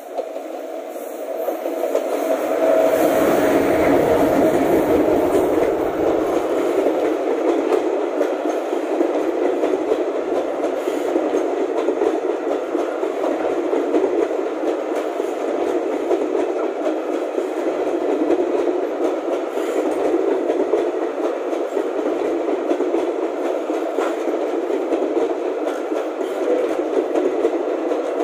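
Electric locomotive-hauled passenger express passing through a station. The noise builds as the locomotive comes by about two to three seconds in, then the coaches roll past with a steady noise.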